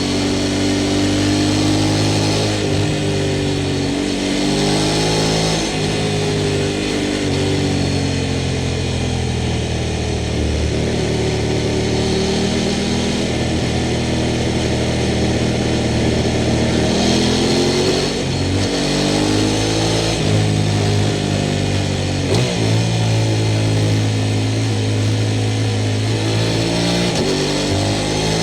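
Sport motorcycle engine running under way, its note rising and falling several times as the throttle opens and closes.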